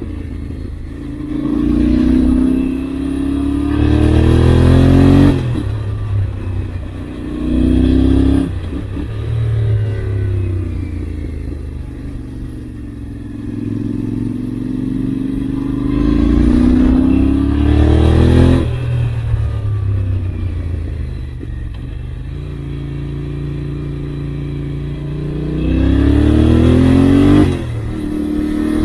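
Yamaha Ténéré 700's parallel-twin engine pulling through the gears and easing off, over and over: its pitch rises, breaks sharply at each shift, and sinks slowly on the throttle-off stretches.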